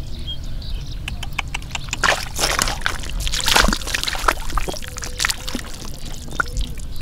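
Hands splashing and squelching in shallow muddy water: irregular wet splats, busier from about two seconds in.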